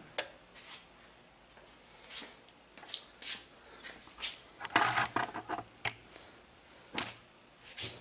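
Scattered light clicks and taps of hands handling the engine's metal throttle linkage, with a brief cluster of rattling knocks about five seconds in and a sharp click near the end.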